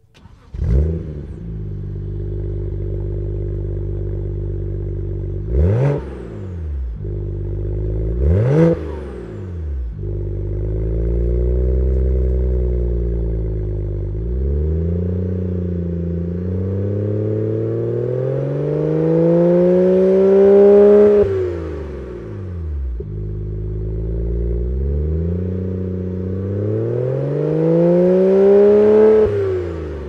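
BMW 1-Series with a 3-inch stainless steel cat-back exhaust, heard from outside the car: the engine cranks and fires about half a second in, settles to idle, then gets two quick throttle blips and three longer revs that climb and fall back to idle, the last two reaching highest.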